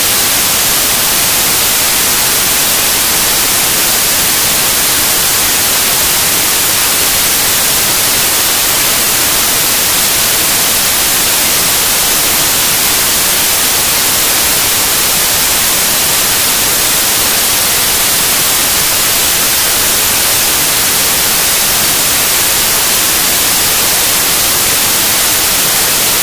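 Loud, steady hiss of static like white noise, brightest in the high frequencies: a fault in the recording rather than a sound from the ring.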